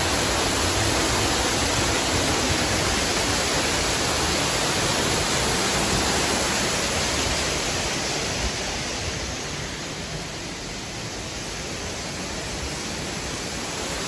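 Man-made waterfall pouring and splashing close by: a steady rush of falling water. It drops off and softens about eight seconds in, then continues as a quieter rush.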